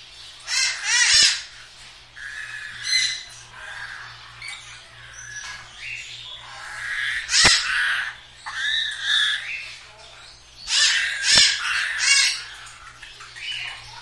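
Parrots giving repeated harsh, shrill calls in bursts, loudest about a second in, at about seven and a half seconds, and again around eleven to twelve seconds.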